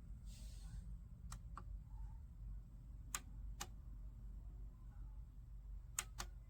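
Three pairs of faint, sharp clicks, the two clicks of each pair a fraction of a second apart, over a low steady hum. A short hiss comes about half a second in.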